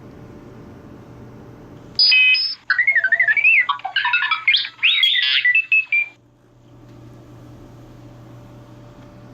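A burst of high, warbling chirps and beeps with quick rising and falling pitch, lasting about four seconds and starting about two seconds in, over a steady low hum.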